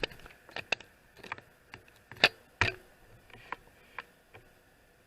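Irregular clicks and knocks of small metal parts and a hand tool being handled while an Ender 3 V2 3D printer's extruder assembly is taken apart, the two loudest knocks a little after two seconds in.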